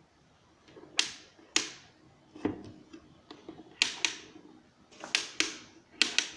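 A series of about nine sharp clicks and knocks, several coming in quick pairs, from hard objects being handled. No motor is heard running.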